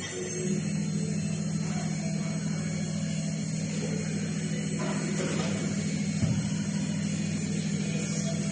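CNC machine with an automatic tool changer running while cutting aluminium: a steady high spindle whine over a low machine hum that strengthens about half a second in.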